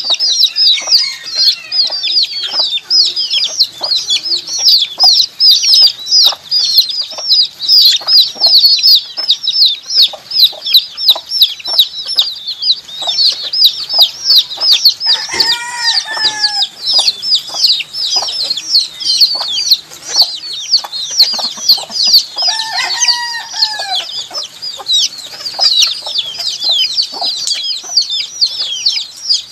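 Many baby chicks peeping non-stop in rapid high chirps. Twice, about halfway through and again near the end, a lower, drawn-out call rises and falls over them.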